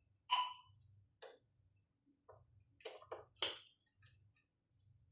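Irregular light clicks and taps, about half a dozen, from small parts and a tool being handled during electronics repair. The first tap, near the start, has a brief metallic ring.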